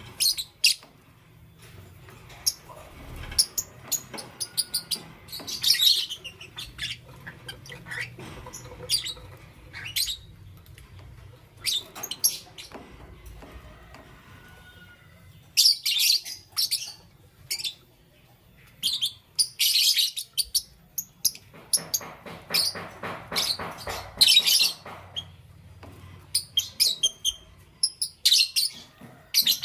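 Pet lovebirds chirping: sharp, high-pitched chirps in irregular clusters, with a few seconds of buzzy, lower chatter a little past the middle.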